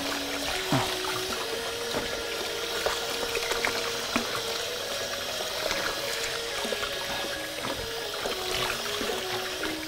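Tap water running into a steel basin while red chili peppers are rinsed by hand, with splashing and occasional light knocks as washed peppers go into a wicker basket. Soft background music with a simple melody underneath.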